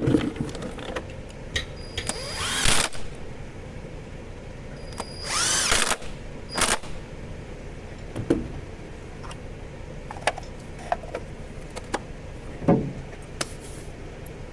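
A small power tool, such as a cordless driver, runs in two short bursts, spinning up each time. Scattered clicks and knocks of tools and parts being handled come between the bursts.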